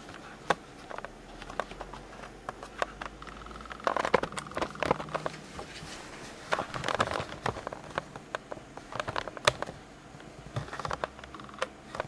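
Scattered small clicks, taps and rustles of hands handling a fan cable and connector inside a steel computer case, plugging a case fan into the motherboard.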